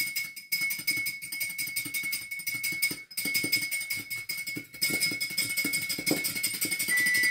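Wire whisk beating oil into a soy sauce and vinegar dressing, clinking rapidly against the bowl, which rings with a steady high tone.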